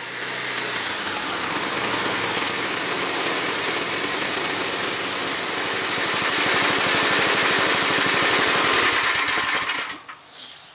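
Tecumseh 8 hp single-cylinder engine running a cordwood buzz saw. It gets louder about six seconds in, then dies away and stops near the end. The wire has come off its kill switch, so it is stopped at the engine.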